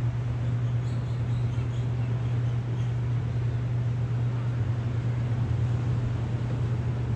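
A steady low machine hum under a constant hiss, with a few faint high chirps in the first few seconds.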